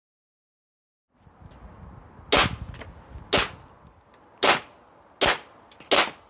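Umarex Ruger SR1911 airsoft pistol firing five shots, roughly one a second, after about a second of silence.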